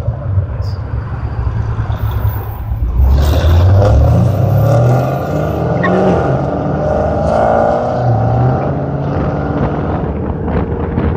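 Pontiac G8 with long-tube headers, an X-pipe and Kooks mufflers: exhaust rumbling at idle, then revving up and climbing in pitch as it pulls away about three seconds in, and running steadily after that.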